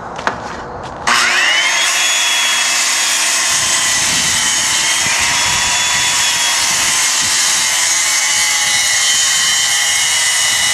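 Circular saw on a guide track switched on about a second in: the motor whines up to speed and then runs steadily at high pitch, making a trimming cut through a plywood panel.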